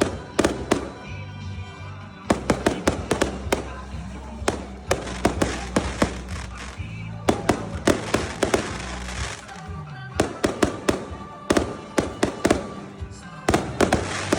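Fireworks going off in quick clusters of sharp bangs and crackles, over music with a deep, steady bass.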